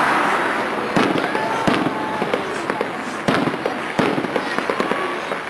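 Fireworks display: several sharp bangs of bursting shells, the loudest about a second in and again near three and four seconds, over a continuous crackle of many smaller reports.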